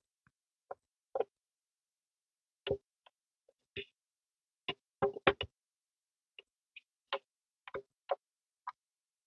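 Sharp, irregular clicks and knocks of a toy van's hard plastic and metal parts being handled and fitted together by hand, with a quick run of louder knocks about five seconds in.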